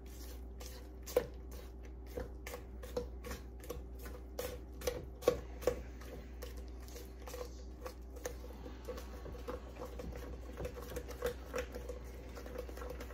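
Silicone spatula stirring a soft, wet mix of whipped topping, dry pudding powder and crushed pineapple in a stainless steel bowl: quick irregular taps and scrapes against the bowl, about two or three a second, over a steady low background hum.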